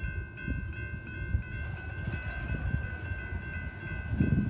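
Railroad grade-crossing warning bell ringing in a steady run of repeated dings, over a low rumble.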